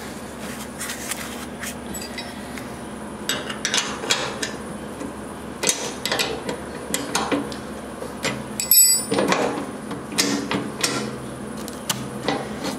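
Scattered metal clinks and knocks as the loosened skid shoe on a John Deere 1330SE snowblower is moved up and down by hand against the auger housing. A sharper ringing clink comes about nine seconds in.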